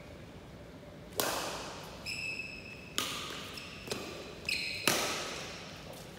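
Badminton rally: four sharp racket strikes on the shuttlecock, each ringing out in the hall's echo, with two brief high shoe squeaks on the court floor between them.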